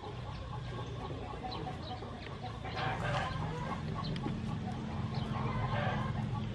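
Chickens clucking in the background: short, scattered calls over a low steady hum that grows louder about halfway through.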